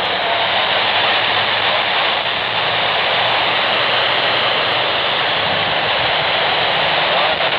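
Steady FM radio static: the hiss of a receiver tuned to the AO-91 (Fox-1B) amateur satellite's FM voice downlink near 145.96 MHz, with no voice coming through.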